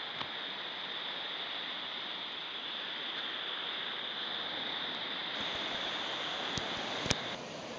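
Ocean surf breaking and washing, a steady rushing noise, with a couple of sharp clicks near the end.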